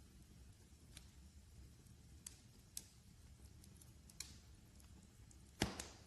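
Wood fire crackling: a few scattered sharp pops over a low steady rumble, the loudest pop near the end.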